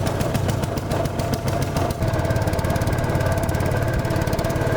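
Boat engine running steadily, a fast, even pulsing with a steady whine over it.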